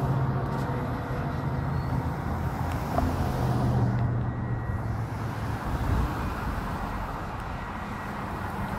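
Steady low drone of a Metra diesel locomotive running as its commuter train pulls away, mixed with road traffic noise. The engine hum weakens about two thirds of the way through.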